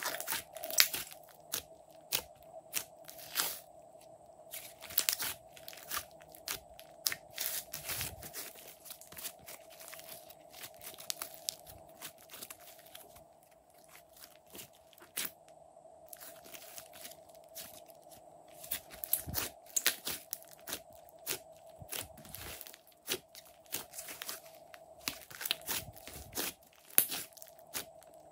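Hands kneading, folding and squeezing glossy slime, making many irregular sticky clicks, crackles and pops. A faint steady hum runs underneath.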